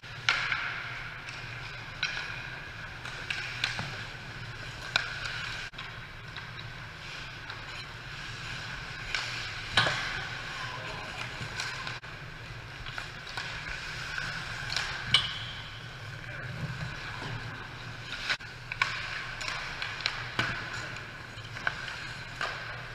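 Pickup ice hockey heard from behind the goal: skate blades scraping on the ice, with sharp clacks of sticks and pucks every second or two over a low steady rink hum.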